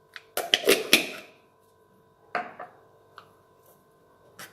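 A spoon knocking and clinking against kitchenware: a quick cluster of knocks about half a second in, then a single knock near the middle and a couple of small taps later, over a faint steady hum.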